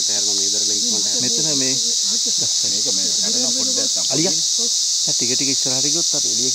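Loud, steady, high-pitched drone of forest insects, with men's voices talking beneath it.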